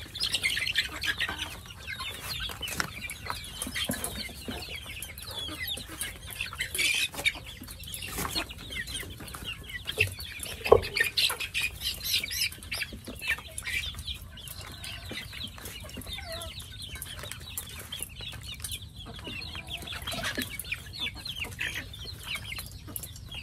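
Flock of chickens clucking, with many short high calls throughout and a sharp knock about 11 seconds in.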